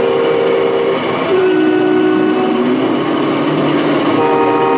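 Air horns from the sound modules of model Scania trucks: a series of held multi-note horn blasts, each about a second long, shifting in pitch, with a higher chord joining a little past four seconds in, over steady hall noise.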